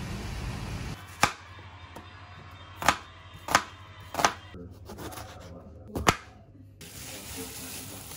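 A kitchen knife chopping an onion on a plastic cutting board: five sharp knocks, unevenly spaced over about five seconds, after a second of steady splashing from a fountain.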